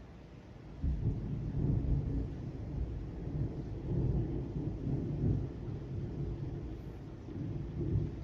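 Thunder: a clap breaks suddenly about a second in and rolls on as a deep, uneven rumble.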